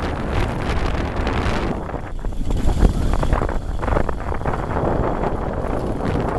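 Wind buffeting the microphone of a DN ice yacht sailing at speed, over the rumble and hiss of its steel runners on snow-covered ice. The hiss thins out for a while about two seconds in.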